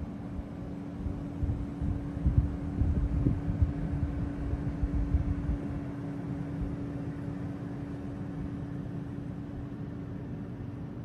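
Steady low hum of indoor room noise, with a few seconds of irregular low rumbling thumps about two to five seconds in.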